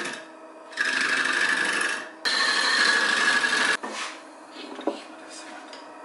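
A small wooden pipe part spinning on a wood lathe is being sanded. Two rubbing hisses of about a second and a half each, then quieter running near the end.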